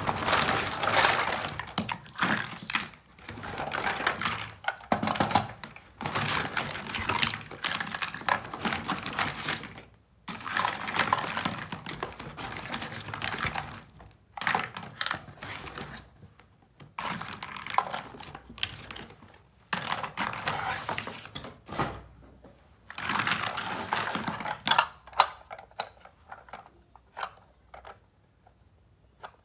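Small plastic toy kitchen pieces being handled, giving clicks and rustling that come in bursts separated by short pauses.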